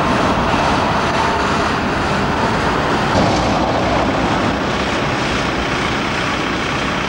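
Steady street traffic noise from passing vehicles, among them a tram works car hauling a load of long rails.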